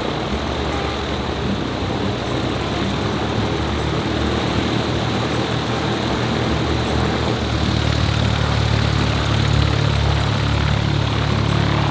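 Propeller airplane engine running, loud and steady, growing stronger in the second half.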